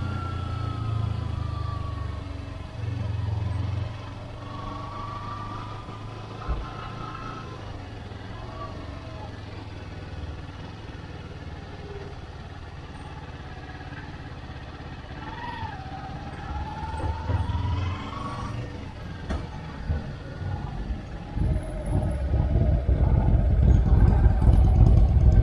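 Kawasaki Ninja 250's parallel-twin engine running under a rider at low speed, its pitch rising and falling with the throttle, with a louder rumble over the last few seconds.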